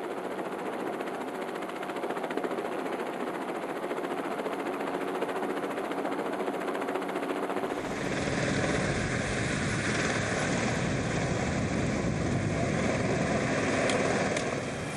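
Steady engine noise from the vehicles covering a road bike race. About eight seconds in it changes suddenly to a louder, fuller rush.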